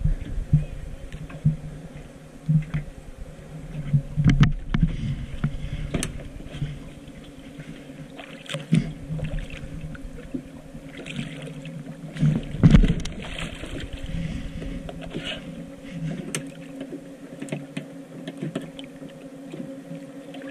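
A boat's motor running at a steady pitch, with scattered knocks and thumps over it, the loudest about twelve seconds in.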